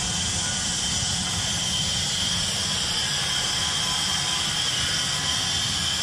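Glycol fill rig's pump running steadily, pushing propylene glycol through the open snowmelt loops with a constant hum and rushing hiss, while air is bled out of the loops.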